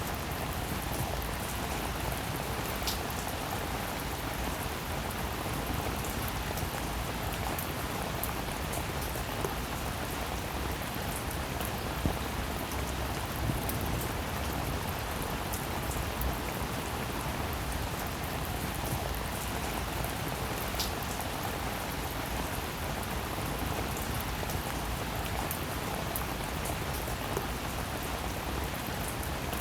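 Steady rainfall with a constant hiss and a few louder single drops striking a surface now and then.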